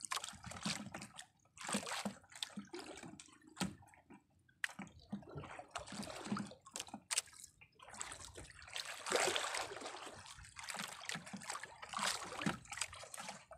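Sea water sloshing and splashing against the hull of a small outrigger boat in irregular surges.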